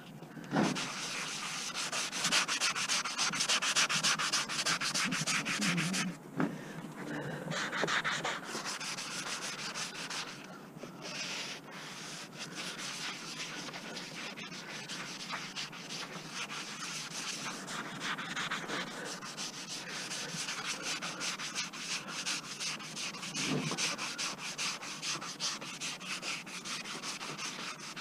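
Rusty sheet metal on a truck being sanded by hand in rapid back-and-forth strokes, prepping it for paint. The scraping pauses briefly twice, about six and ten seconds in.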